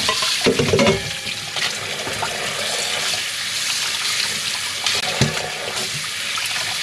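Kitchen faucet running steadily into a stainless steel sink and bowl, splashing over fish being rinsed by hand. There is a louder splash and clunk about half a second in and a sharp knock about five seconds in.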